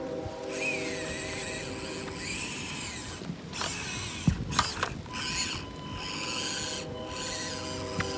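Axial SCX24 mini RC crawler's small electric motor and geartrain whirring in several short runs with brief pauses between, plus a few clicks.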